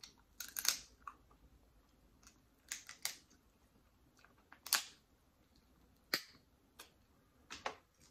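Close-miked eating sounds at a seafood meal: about six sharp clicks and smacks, spaced irregularly.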